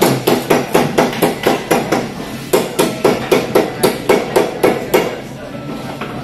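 Rapid, regular knocking, about four or five strikes a second, with a brief break about two and a half seconds in; the knocking stops about five seconds in.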